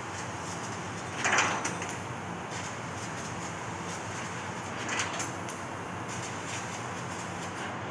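CNC laser cutting machine cutting a pattern in sheet metal: a steady hiss and machine hum, with two short louder hissing surges, about a second in and about five seconds in.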